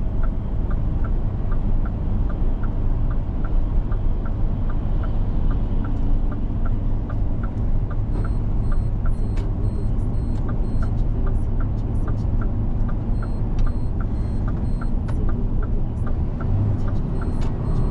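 Scania truck cab interior at road speed: steady diesel engine and tyre drone, with a regular light ticking at about three ticks a second and a few small knocks.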